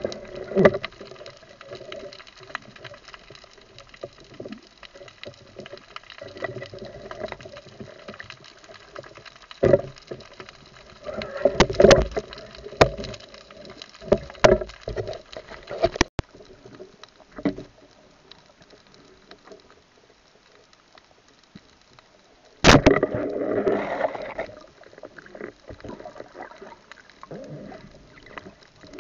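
Underwater sound picked up by a diving camera: water movement with scattered muffled knocks and clicks. A loud knock comes about three quarters of the way through, followed by a couple of seconds of churning noise.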